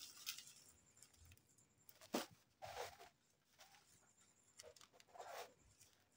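Faint, scattered crinkles and scrapes of a small blade cutting through tape and black plastic bubble wrap around a fishing-rod tube, with one sharper click about two seconds in.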